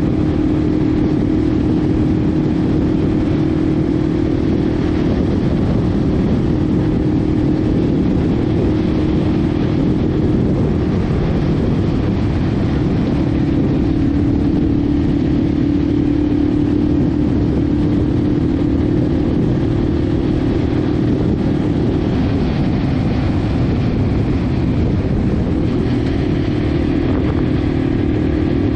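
Yamaha TW200's 196cc single-cylinder four-stroke engine running steadily at cruising speed while riding, mixed with loud low rushing wind and road noise. The engine note dips slightly in pitch a couple of times as the throttle eases.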